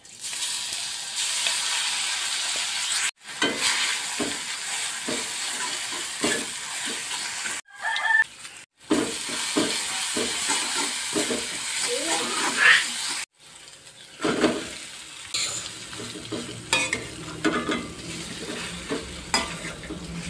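Ground red chili sambal sizzling loudly in hot oil in a metal wok while a metal spatula scrapes and stirs it in repeated strokes. The sizzle cuts off abruptly a few times and is quieter over the last several seconds, as fried tofu is stirred through the sambal.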